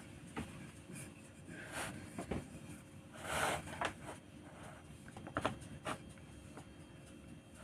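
Wooden rolling pin rolled and pressed over the rim of a metal tart tin to cut off the excess pastry: faint scraping with a few light knocks, and one louder scrape about three and a half seconds in.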